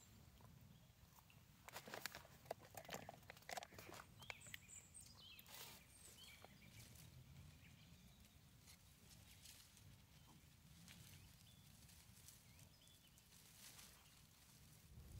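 Quiet forest ambience: soft crackles and rustles, like movement in leaf litter, clustered in the first few seconds, with a few faint high bird chirps about five seconds in.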